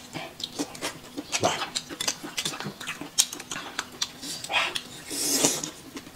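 Close-up eating sounds: wet chewing and lip smacks over boneless chicken feet and hot-and-sour noodles, with chopsticks clicking against bowls, and a longer hissing slurp a little after five seconds in.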